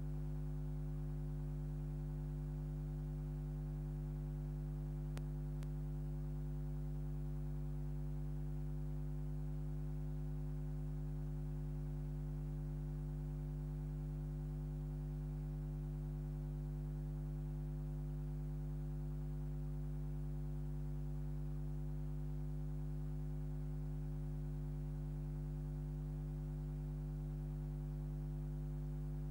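Steady electrical mains hum: a low, unchanging drone with a stack of higher overtones, picked up on the soundtrack of a silent 8mm film transfer.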